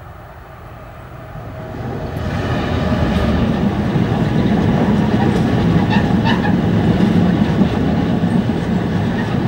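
Freight train hauled by a Class 66 diesel locomotive, growing louder over a couple of seconds as it reaches the crossing. Then a steady heavy rumble of tank wagons rolling over the crossing, with clicking from wheels over the rail joints.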